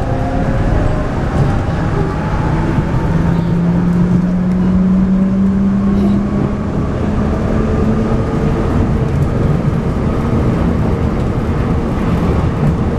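New Shuttle rubber-tyred automated guideway train running at speed, heard from inside the front car: a steady rumble of tyres on the concrete guideway, with a motor whine that slowly climbs in pitch.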